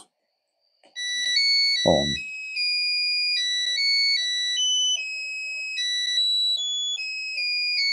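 Electronic beeping melody from a music-chip circuit, picked up by a pocket medium-wave (AM) radio and played through its small speaker, with a faint hiss of radio noise beneath. The tune starts about a second in when the circuit is switched back on, and moves in quick steps of two to four notes a second.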